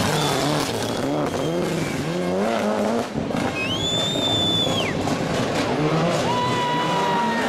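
Mitsubishi Lancer Evolution rally car's engine revving hard, its pitch rising and falling through gear changes as it accelerates past. Then tyres squeal in one long, high screech for about a second and a half as the car slides through the corner, with a second, lower squeal near the end.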